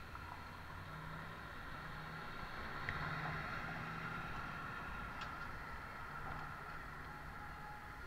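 Steady road noise from a moving pedicab on a city street: a rolling rumble and hiss with car traffic passing, a faint tick or two, and no voices.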